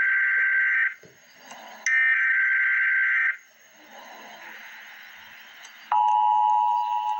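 Emergency Alert System header tones: the last two buzzy SAME digital data bursts, each over a second long with a pause between. About six seconds in, the steady two-tone EAS attention signal (853 and 960 Hz) begins.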